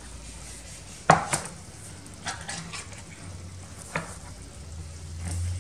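A tin can being handled on a stone countertop: a sharp metallic click about a second in, then a few lighter knocks.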